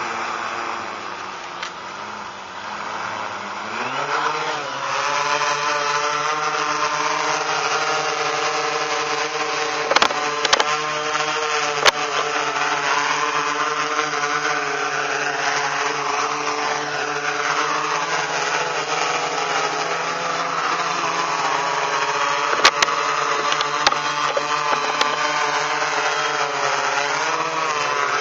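Electric motors and propellers of an FPVFactory Mariner waterproof quadcopter buzzing, climbing in pitch about four seconds in and then rising and falling with the throttle. A few sharp knocks sound around the middle and again later on.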